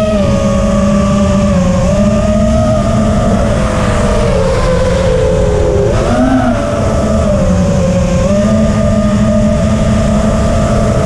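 Spedix Black Knight 210 racing quadcopter's brushless motors and propellers whining in flight, their pitch rising and falling with the throttle, with a quick rise and dip about six seconds in. Wind rushes over the onboard microphone underneath.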